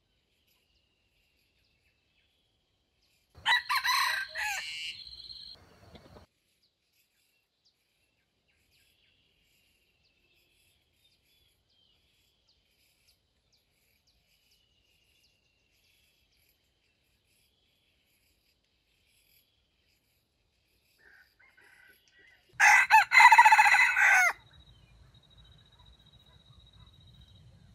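Red junglefowl rooster crowing twice: once a few seconds in, and again, louder and shorter, near the end.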